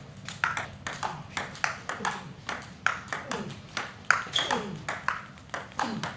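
Table tennis rally: the ball clicks off bats faced with pimpled rubbers (long pips and medium pips) and off the table, about three sharp ticks a second in an uneven back-and-forth rhythm.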